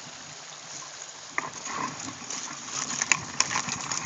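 Creek water running, with a sharp knock about a second and a half in and a run of irregular clicks and knocks near the end.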